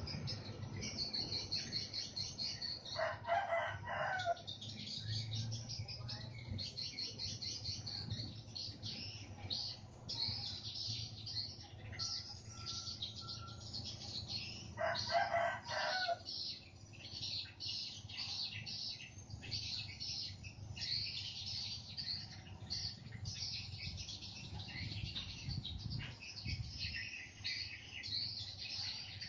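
Small birds chirping busily throughout, with a rooster crowing twice: about three seconds in and again around fifteen seconds in.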